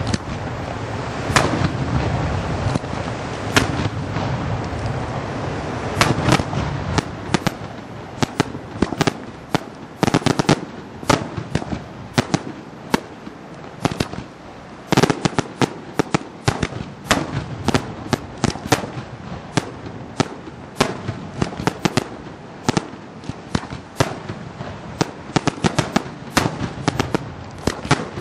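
Daytime aerial fireworks: a dense, irregular barrage of sharp bangs from small shells bursting in the sky, with a low rumble beneath the bangs for the first several seconds.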